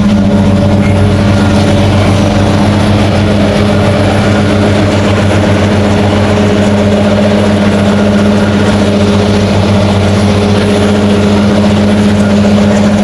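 Motor vehicle engine running steadily, a constant low hum that holds one pitch throughout.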